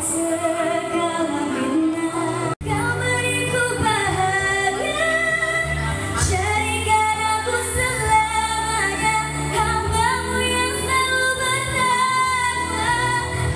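A teenage girl singing through a handheld microphone and PA, holding long, sliding notes over steady low instrumental accompaniment. The sound cuts out for an instant about two and a half seconds in.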